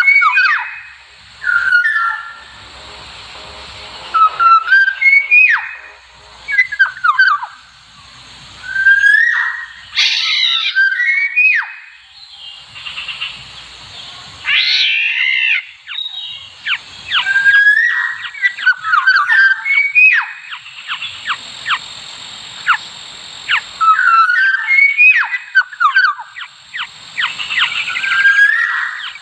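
Black-naped oriole calls: bursts of short fluty whistled notes repeated every second or two, with a couple of harsher, noisier calls in between.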